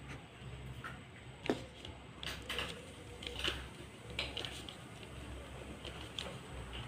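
Light, scattered taps and scratches of a ballpoint pen and paper being handled on a plastic board, the sharpest tap about a second and a half in, over a low steady background hum.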